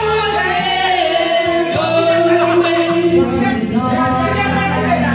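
Music with singing: long, held sung notes over an instrumental backing.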